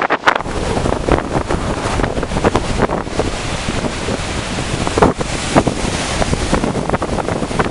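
Strong storm wind buffeting the microphone in loud gusts, over storm waves breaking on the beach.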